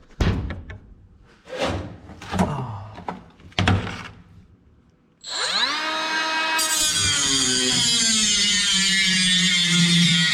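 A few knocks and clatter of handling, then an electric cutoff-wheel grinder spins up with a rising whine about five seconds in and holds steady. About a second later a hiss joins it as the wheel starts cutting the truck's sheet-metal cab floor.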